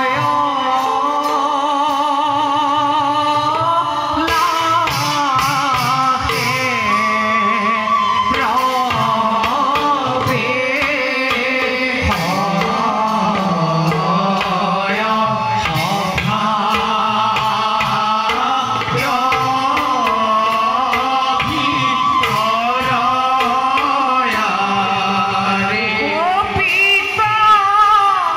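Devotional song with a hand-drum accompaniment: a singer's voice wavering and ornamented over a steady drum pattern, playing continuously.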